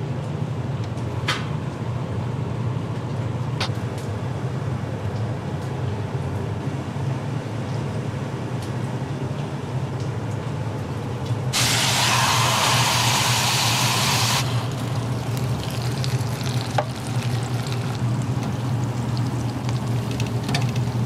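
Steady low hum of kitchen equipment, with a few light clicks early on. About halfway through comes a loud, even hiss lasting about three seconds.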